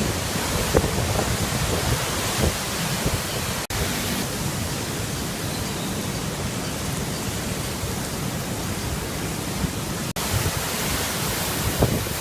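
Typhoon wind and heavy rain: a steady rushing noise with no let-up, broken by two split-second dropouts, about four seconds in and near the end.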